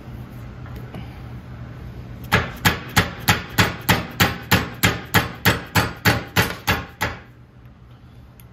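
A hammer striking a short steel 1/4-inch socket extension used as a drift, about sixteen quick, evenly paced blows at roughly three a second starting about two seconds in. It is driving a stuck handlebar clamp bushing out of a 1968 Triumph T120R's top triple clamp, and the bushing comes free.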